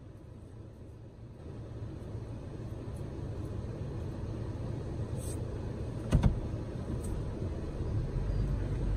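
Car engine and tyre rumble heard from inside the car, steady and low, growing louder after about a second and a half. A single sharp knock about six seconds in is the loudest sound.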